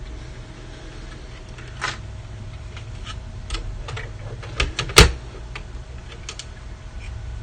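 Scattered small clicks and taps of parts being handled during reassembly of a DJ mixer, with one sharper knock about five seconds in, over a steady low hum.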